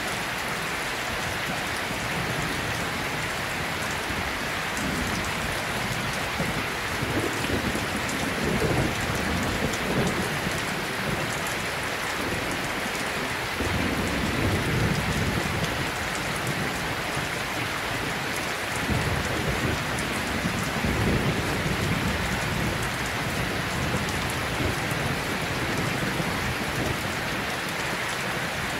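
Steady rain with low thunder rumbling in several slow swells, the strongest about a third, half and two thirds of the way through.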